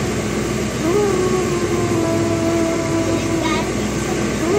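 Vehicle engine and road noise while driving: a steady hum over an even rumble, its pitch briefly rising about a second in and again near the end.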